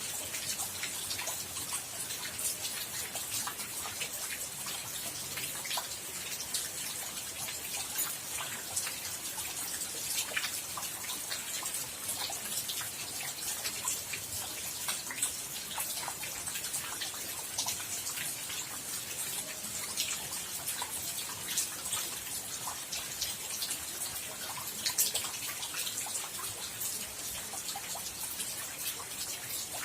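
Steady rain falling, a constant hiss with many separate drops and drips ticking sharply against a surface.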